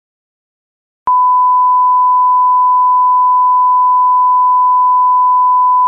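A loud, steady, single-pitched electronic beep like a test tone, cutting in sharply with a click about a second in after dead silence and holding unchanged.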